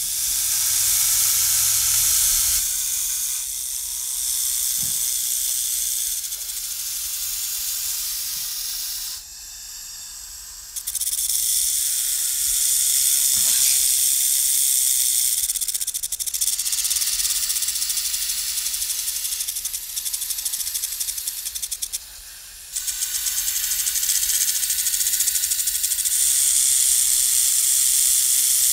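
Rattlesnake shaking its tail rattle: a continuous high, dry buzz, the warning rattle. It briefly dies down twice, about a third of the way in and again about three quarters through.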